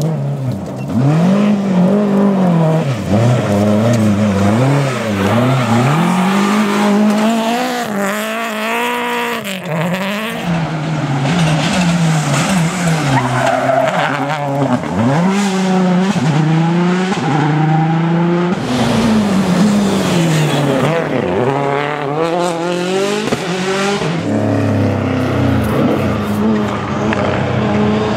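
Rally cars' engines revving hard, the pitch climbing and dropping again and again through gear changes and lifts as the cars pass at speed.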